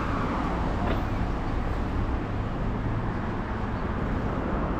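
Steady road traffic noise: a continuous low rumble of vehicles running by.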